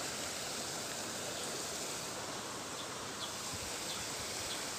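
Steady hiss of water flowing in a concrete irrigation channel, with a few faint scattered ticks.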